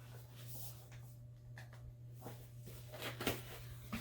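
Product packaging and a small electronic device being handled: rustles and a few light knocks, the loudest a little past three seconds in, over a steady low hum.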